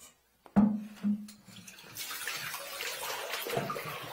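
A ceramic toilet knocks twice against the tile floor as it is tipped off its flange, the first knock loud with a short ring, then water splashes and runs out onto the tiles.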